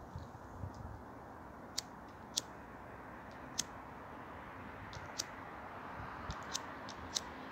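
A gas lighter being flicked over and over: about nine sharp clicks at uneven intervals, without lighting. The lighter is partly out of gas.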